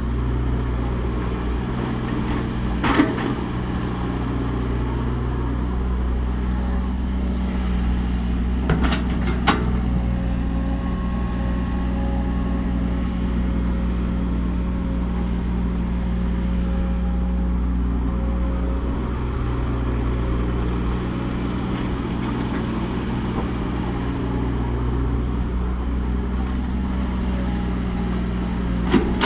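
Diesel engine of heavy construction machinery running steadily, with a few sharp metal clanks: one about three seconds in, a couple around nine seconds, and one at the very end.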